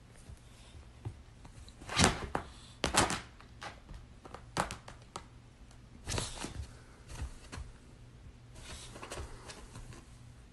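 Scattered soft thumps, scuffs and rustles of a pug and a kitten moving about on a couch, with two louder knocks about two and three seconds in.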